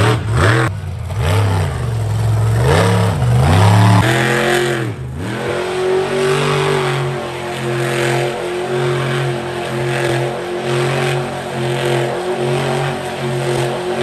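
Monster truck engine revving hard in quick rises and falls for the first few seconds. It then holds at high revs in a steady, slightly pulsing drone as the truck circles on the dirt.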